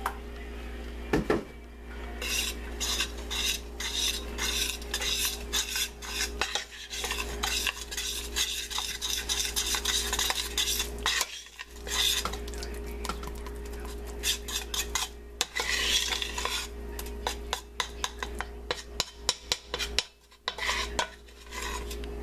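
Pizza dough being mixed from flour and water by hand in a stainless steel pot: a long run of wet stirring and scraping strokes against the pot, with a knock on the pot about a second in and a short lull about halfway.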